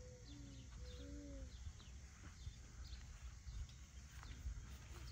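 Faint outdoor ambience of small birds chirping, short high calls repeating irregularly over a low steady rumble, with a few faint low sliding tones in the first second and a half.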